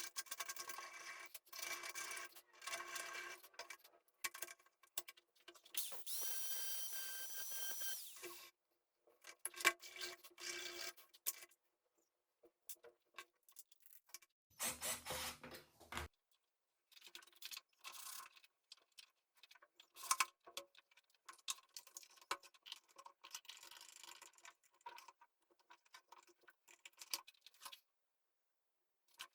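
Quiet workshop handling noise: intermittent rubbing and scraping on wood with light taps, broken by brief silences. A steady whine lasts about two seconds from roughly six seconds in, and a low rumble of about a second and a half comes near the middle.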